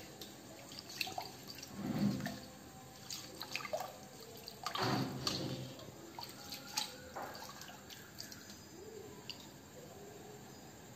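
A spoon stirring rice in salted water in an open pressure cooker: liquid sloshing and swishing, with scattered light clicks and knocks of the spoon against the pot, the sloshing strongest about two and five seconds in.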